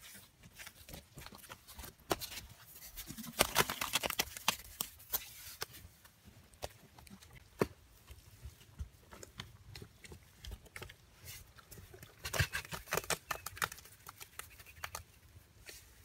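Bare hands patting and slapping wet mud plaster onto an earthen wall, in two spells of rapid pats about three seconds in and again about twelve seconds in, with scattered single pats between.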